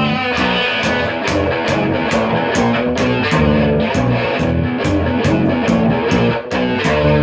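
Rock music with electric guitar over a driving beat, about four drum strikes a second.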